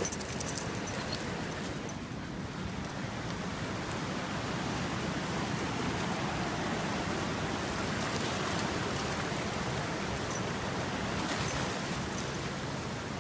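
Steady rushing of a fast-flowing creek swollen with rain and snowmelt, with a short clatter right at the start.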